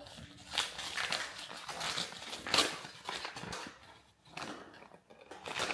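Paper flour packet being handled and opened, several short crinkling rustles of paper.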